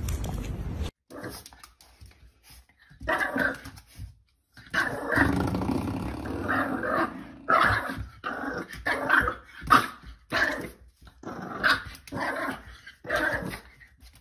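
A dog growling and barking in repeated short bursts, with brief pauses between them. The first second is low, even background noise before a cut.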